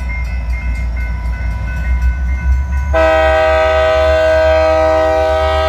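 Diesel freight locomotive rumbling through a grade crossing. About three seconds in, its air horn comes in loudly and holds, several notes sounding at once over the engine noise.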